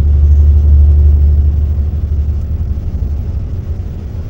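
Low, steady rumble of road and wind noise from a vehicle travelling along a highway, heaviest in the first couple of seconds and easing off after.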